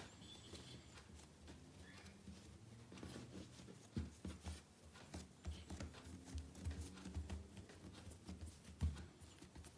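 Hands rolling and pressing soft bread dough on a kitchen bench: faint, dull thumps and taps, coming thicker from about halfway through.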